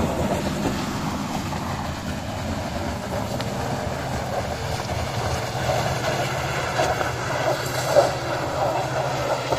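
Toyota Fortuner's engine running under load as it struggles up an off-road track: a steady low drone with rough, crackling noise over it, and a brief louder knock about eight seconds in.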